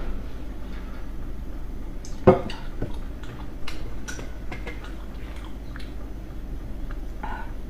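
Eating utensils tapping and clinking against dishes: one sharp clack a little over two seconds in, then scattered small clicks.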